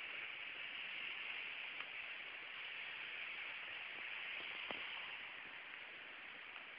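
Stream in flood, water rushing past in a steady hiss.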